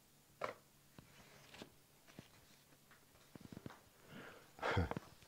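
Light knocks and clicks of a Kibler Woodsrunner rifle's steel barrel being laid and pressed into the barrel channel of its maple stock: a few scattered taps, a quick run of small clicks a little past halfway, and a louder knock near the end.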